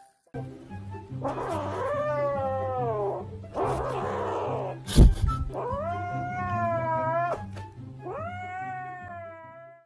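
Domestic cat yowling: three long, drawn-out calls falling in pitch, with a harsher, noisier call between the first two. A sharp thump comes about five seconds in, over background music.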